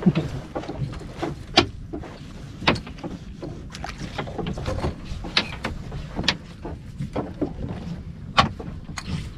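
A fishing net being hauled by hand into a small open boat: irregular sharp knocks and taps as the net and its catch come over the side and against the hull.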